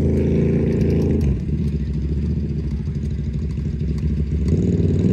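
Side-by-side UTV engine revving under load during a cable recovery out of deep water. It holds steady revs, drops back about a second in, and picks up again near the end.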